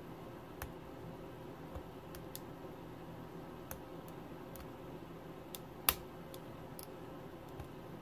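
Single pin picking of a Cole five-pin kik knob cylinder: faint, scattered metal ticks as the hook pick works the pins, with one sharper click about three quarters of the way in. A faint steady hum underneath.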